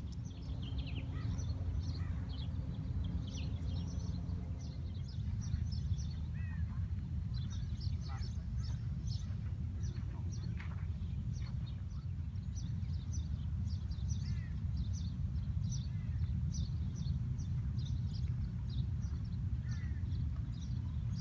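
Many short, high chirps from small birds, coming in quick scattered runs, over a steady low rumble.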